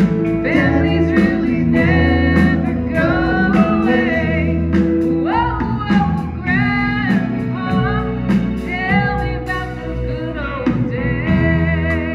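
Live country band playing: a woman singing the lead over electric guitar, bass guitar, keyboard and drums.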